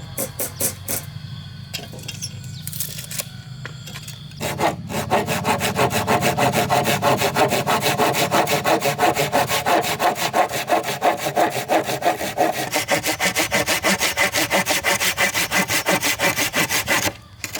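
A few scattered knocks, then a saw cutting through wood in rapid, even back-and-forth strokes, with a brief pause near the end.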